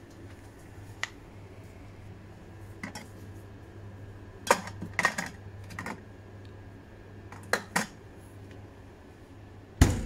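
Cans and bottles clinking and knocking as they are handled in a minibar fridge, with a cluster of clinks a few seconds in. The fridge door is pushed shut with a thud near the end, the loudest sound.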